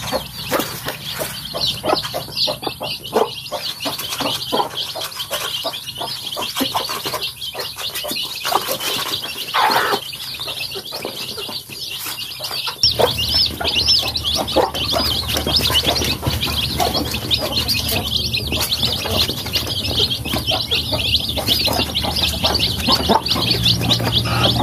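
A brood of young chicks peeping continuously in a dense, high chorus, with scattered clicks and taps in the first half. About halfway through, a steady low hum comes in under the peeping.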